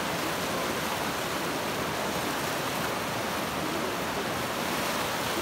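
Shallow river rapids rushing over rocks, a steady, even whitewater noise.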